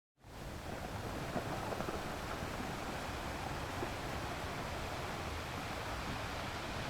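Ocean surf washing on a beach, a steady rush of breaking waves. It cuts in from dead silence right at the start, fading up within a fraction of a second.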